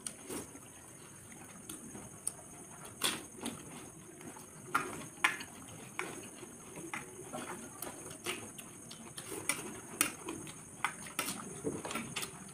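Eating by hand from steel plates: irregular soft clicks and taps of fingers mixing rice against the metal, with chewing and mouth noises.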